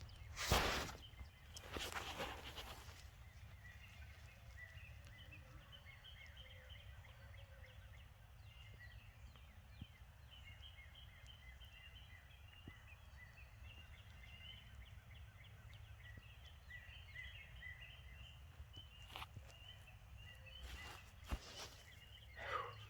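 Wild turkey gobblers gobbling hard in bursts, a couple near the start and more near the end, with faint high chirps throughout.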